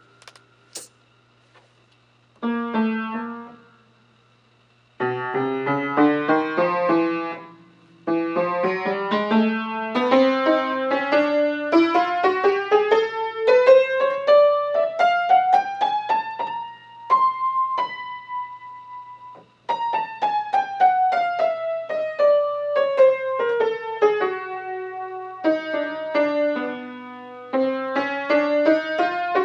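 Piano-voiced keyboard played solo: a couple of short chords, then long runs of notes climbing steadily for several seconds to a high note held briefly past the middle, falling back down and climbing again. A faint steady low hum runs underneath.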